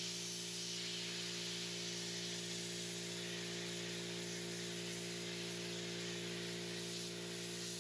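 Sandblaster hissing steadily as it blasts rust off exposed steel rebar, over a steady low hum.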